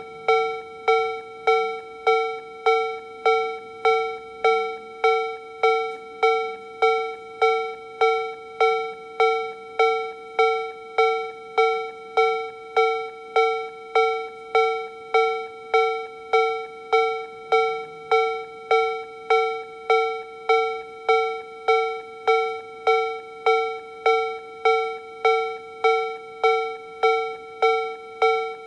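Japanese railway level-crossing alarm from a Toho Denki TA3-VR electronic alarm sound generator, playing the Tobu-style B/C tone at slow tempo. It is a bell-like electronic chime struck about one and a half times a second, each strike ringing briefly and fading, at an even, steady volume.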